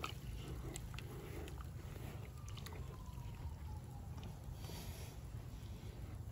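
A hand scraping and scooping damp sand and soil from under an aluminium casting: faint scrapes and small scattered clicks over a low rumble.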